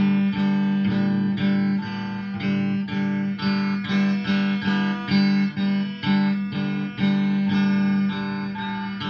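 Electric guitar strummed in a steady rhythm, the same chords repeated about twice a second.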